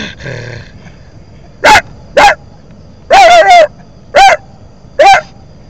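Six short, loud, high yelping barks in quick succession, each rising and then falling in pitch.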